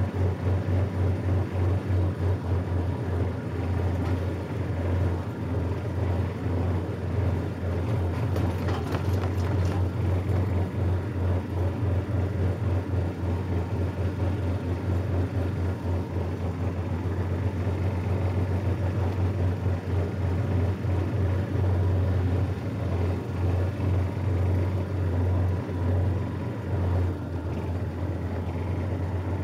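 The small engine of a John Deere riding lawn tractor running steadily as it is driven along, a low drone with a fast, even flutter.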